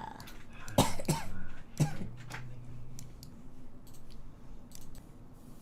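A young woman coughing, about three coughs in quick succession in the first two seconds, followed by a run of faint clicks.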